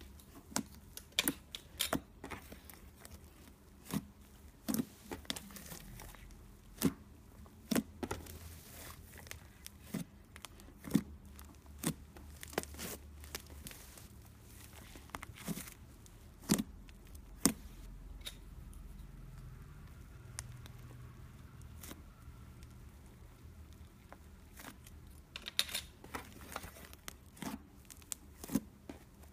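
Fingers pressing and squeezing thick cream cheese slime, making irregular sharp clicks and pops, bunched together in places.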